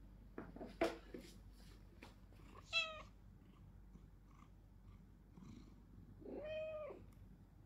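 Domestic cat meowing: a short, clipped meow just under three seconds in, then a longer meow that rises and falls near the end. A few sharp clicks come about a second in.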